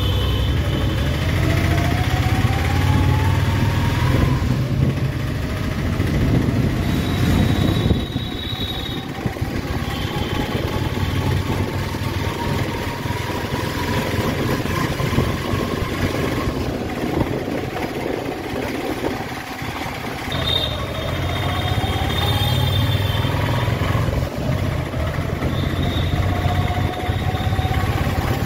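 Road traffic crossing the bridge's road deck: a steady low rumble, with vehicle engines rising in pitch as they accelerate, several times over, and a few short high-pitched tones.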